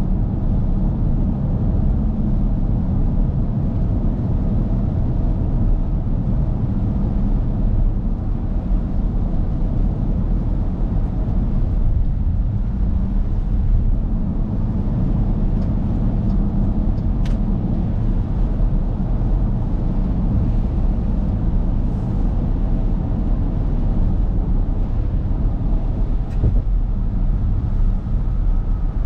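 Steady in-cabin drone of a 2023 Dodge Durango R/T, its 5.7 Hemi V8 cruising at highway speed, mixed with the hiss of tyres on a wet road.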